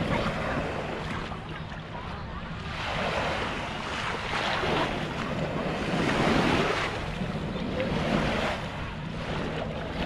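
Small waves washing up onto a sandy beach, swelling and fading every second or two, with wind rumbling on the microphone.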